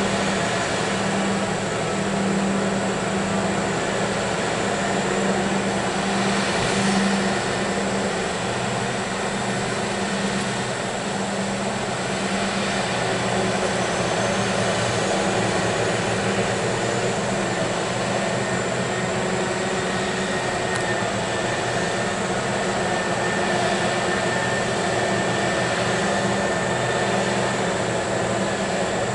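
Liebherr 996 mining excavator running under load while loading a haul truck: a steady, unbroken machine drone with a held low tone.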